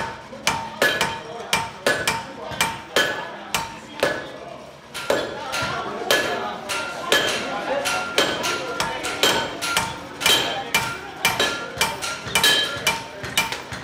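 Hand hammer forging a red-hot steel cube on an anvil, about two blows a second, each strike followed by a short ring from the anvil. The blows thin out briefly about four seconds in.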